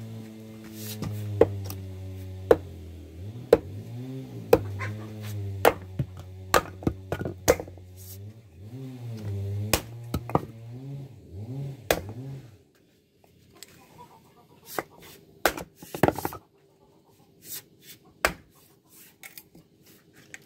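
Fiskars X17 splitting axe striking dry firewood on a chopping block: repeated sharp blows and cracks as the logs split, about one a second at first and more spaced out later. Under the first twelve seconds runs a low droning hum that wavers in pitch, then stops.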